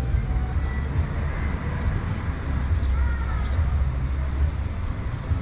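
City street ambience: a steady low rumble of passing traffic, with faint voices in the background.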